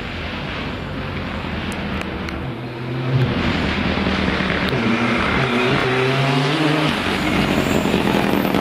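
Fiat 124 Abarth Rally car's turbocharged four-cylinder engine driven hard on a rally stage, its note stepping up and down through gear changes and lift-offs. It gets louder about three seconds in as the car comes closer.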